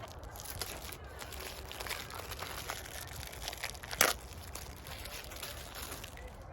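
Plastic packaging crinkling and rustling as it is handled and opened, with one sharp click about four seconds in.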